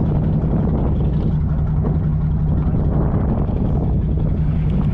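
Sportfishing boat's engine running steadily with a constant low hum, over a rushing haze of wind and sea.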